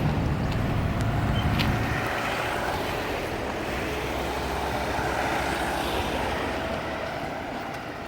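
A road vehicle passing, its engine and tyre rumble fading away over the first two seconds, leaving a steady wash of street noise that slowly grows quieter.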